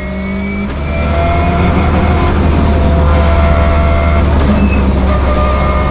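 Subaru Impreza WRC rally car's turbocharged flat-four engine pulling hard on track. Its pitch climbs steadily and breaks and restarts a few times at gear changes, and it gets louder about a second in.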